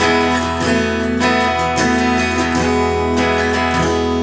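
Semi-hollow electric guitar played on an open E major chord, the low E string ringing under it while the upper notes are picked and re-struck every half second or so, moving between E major and E sus4 with the A placed beside the G sharp. The chord stops just after the end.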